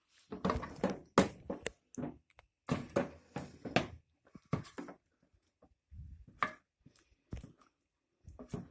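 A spoon knocking and scraping against a saucepan in a series of irregular taps, breaking up a lump of butter melting with chocolate.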